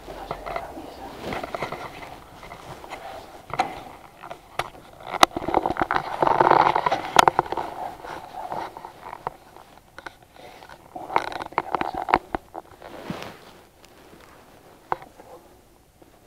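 Handling noise close to the microphone: rustling and scraping with many sharp clicks, heaviest about five to seven seconds in and dying down near the end, as the microphone is being put away.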